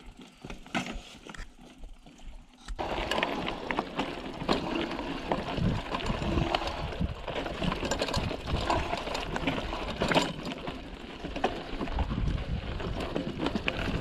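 Mountain bike rattling and clattering over a rough, stony trail, with tyres crunching on gravel and the frame and chain knocking; it starts abruptly about three seconds in and stays dense and busy.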